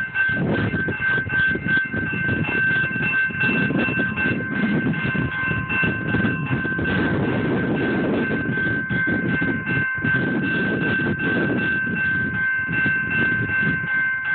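Railroad crossing warning bell ringing steadily while the signal lights flash and the gate arm comes down, warning of an approaching train, over a low rumbling noise.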